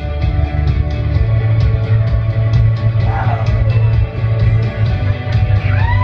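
Loud rock music with a heavy bass, a steady drum beat and sustained guitar, an instrumental stretch of the song; a sung line begins near the end.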